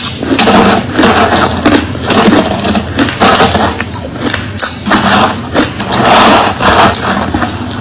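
Crushed ice being chewed close to the microphone: loud crunching with sharp cracks, one bite-crunch after another about every half second.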